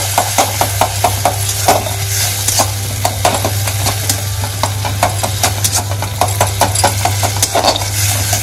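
Steel spatula scraping and knocking against a metal kadai, about three strokes a second, as tomatoes are stirred and fried in a ghee tempering with cumin and dried chilli, over a faint sizzle. A steady low hum runs underneath.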